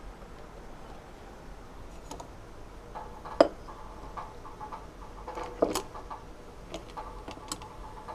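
Light clicks and knocks of objects being handled, with two louder knocks about three and a half and five and a half seconds in, over a faint steady hum that comes in about three seconds in.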